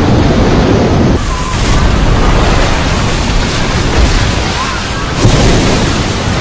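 Loud rumbling, rushing roar of a large wave surging ashore over a beach. The sound changes abruptly about a second in, taking on a brighter, hissing edge.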